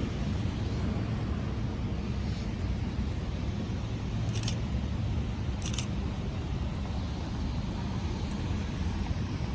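Steady low rumble of road traffic, with two short high-pitched chirps near the middle.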